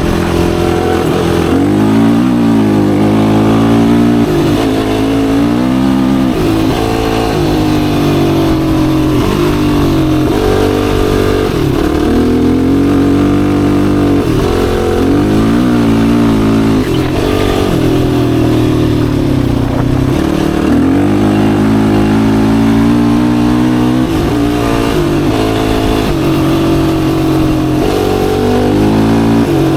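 Yamaha YFZ450R sport ATV's single-cylinder four-stroke engine under way, revving up and falling back many times as the throttle is worked.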